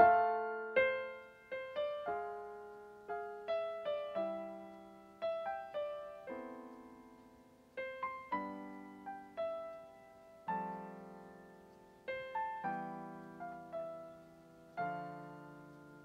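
Slow piano music: single notes and soft chords, each struck and left to ring and fade.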